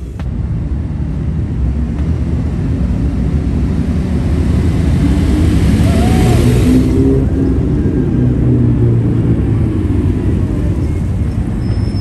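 Cars and a police motorcycle in a slow procession driving past, their engines making a steady low rumble, with a rush of tyre and air noise as a vehicle passes close about halfway through.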